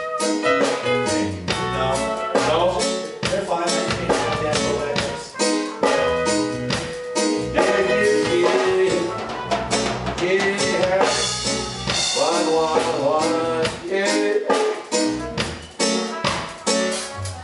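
Live roots reggae band playing a song with drum kit, guitar and bass in a steady beat, during a sound check.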